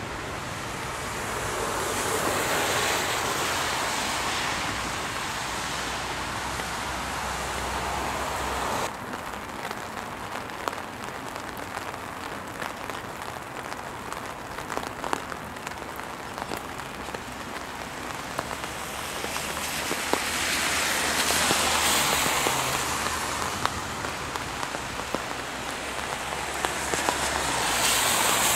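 Traffic passing on a rain-wet road, the tyre hiss swelling and fading as vehicles go by, three times. Between the passes the hiss is fainter, with scattered small ticks of raindrops.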